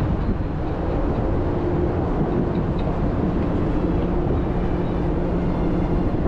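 Steady, loud rumbling noise with a faint low hum running through it, typical of a ship's machinery drone heard on deck.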